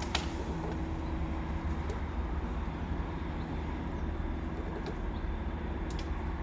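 A large crane's engine running with a steady low drone, a few short sharp clicks sounding over it.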